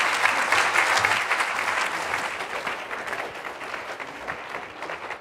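Audience applauding, the clapping gradually dying away toward the end.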